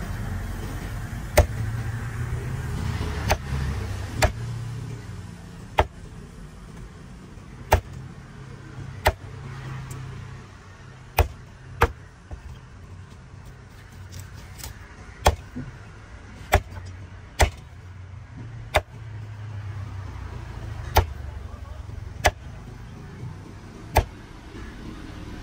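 Heavy cleaver chopping fish on a wooden log chopping block: about fifteen sharp knocks, irregularly spaced a second or two apart. A steady low rumble runs underneath.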